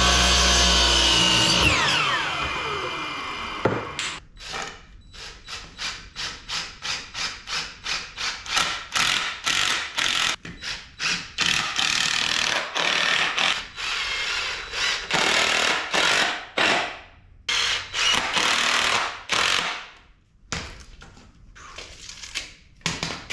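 A DeWalt miter saw running at the end of a cut, its blade spinning down with a falling whine over a couple of seconds. Then a cordless impact driver drives screws into the wooden truss in a long run of short, closely spaced bursts.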